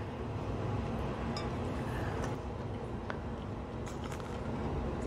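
Steady low background hum of a restaurant dining room, with a few faint clicks and rustles as a taco is lifted from a paper-lined plate.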